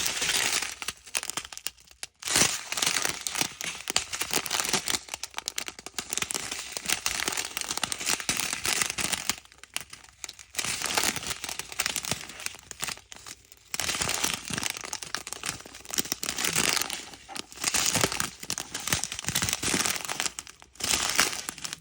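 Plastic packaging crinkling and rustling as it is handled, with short pauses about 2, 10, 13 and 21 seconds in.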